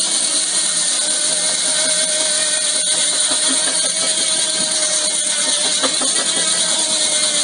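A machine running steadily, with an even high hiss over a steady hum-tone; it switched on abruptly just before.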